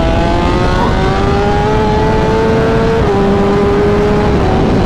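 A BMW M1000RR's inline-four engine, breathing through a full titanium Akrapovic/SC Project exhaust, pulls hard under throttle. Its note climbs steadily, then steps down about three seconds in at an upshift and holds there.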